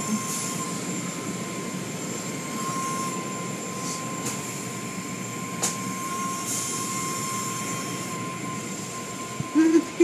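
Automatic car wash running: a steady rush of water spray and machinery with a constant high whine, broken by a couple of short knocks.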